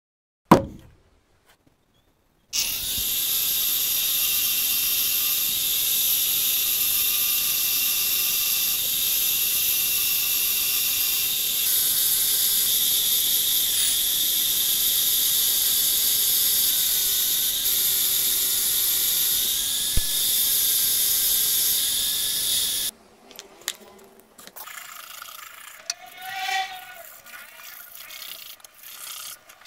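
An electric power tool runs with a steady, high-pitched hiss and whine for about twenty seconds, then cuts off suddenly. A sharp knock comes before it starts, and quieter knocks and rattles follow after it stops.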